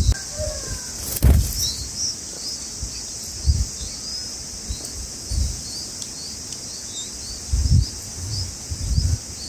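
Small birds chirping in short, repeated rising calls, about two a second, over a steady high-pitched insect drone. A few low rumbles and a sharp click about a second in.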